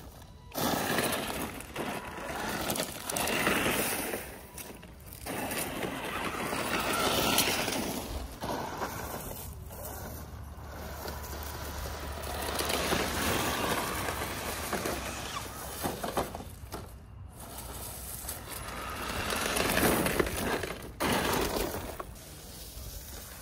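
ZP1007 RC crawler driving over gravel, dirt and dry leaves, its tyres and chassis crunching and rattling over the stones. The sound comes in several surges with brief pauses as it drives, stops and drives again.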